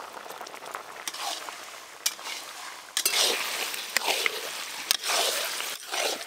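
From about three seconds in, pieces of meat frying in a metal karahi are stirred with a metal spatula: sizzling and scraping, with a few sharp clicks of the spatula against the pan. Before that, quieter squishing of a cloth spice bundle pressed into the simmering meat broth.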